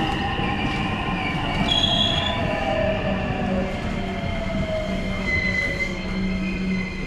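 Electric commuter train slowing into a station, its motor whine falling steadily in pitch, with a brief high wheel squeal about two seconds in.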